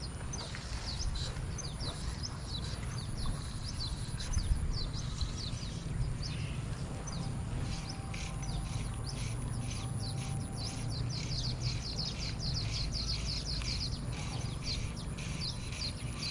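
Birds chirping over and over, each call a short quick downward chirp. The calls come thicker from about halfway through, over a steady low rumble.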